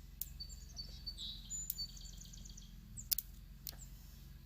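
Faint songbird chirping in quick runs of short, high, evenly repeated notes, with a few sharp clicks.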